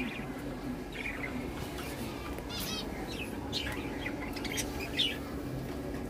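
Caged budgerigars and other small aviary birds chirping: scattered short chirps, with a quick run of chirps about two and a half seconds in, over a faint steady low hum.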